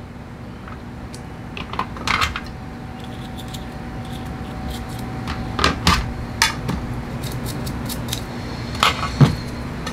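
Light metal clicks, clinks and scrapes as a small metal pick works on carburetor primer bulb parts over a metal tray, coming in scattered groups about two seconds in, in the middle and near the end. A faint steady hum runs underneath.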